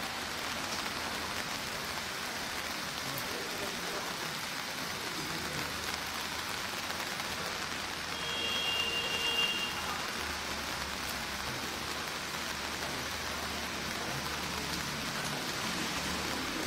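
Three 60-second colour-flame fireworks burning with a steady hiss of spraying flame. A brief faint high tone and a slight swell come about halfway through.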